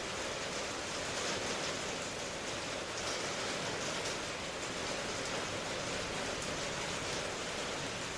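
Steady rain falling, a continuous even hiss with faint scattered drop patter.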